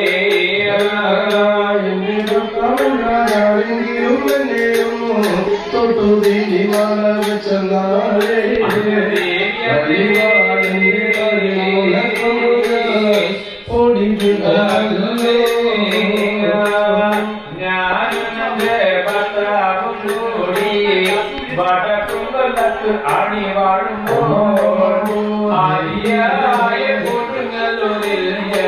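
Men singing a Thottam pattu, a chanted Kerala temple song to the goddess, accompanied by a nanthuni, a long-necked string instrument whose strings are struck with a small stick, keeping a steady beat. The singing pauses briefly about halfway through.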